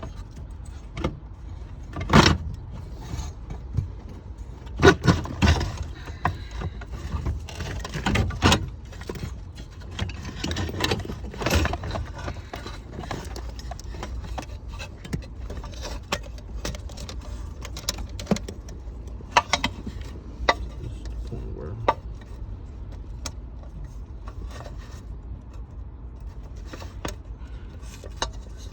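Irregular metallic clinks, taps and knocks of hand tools and loose metal parts being handled, busiest in the first half and sparser later.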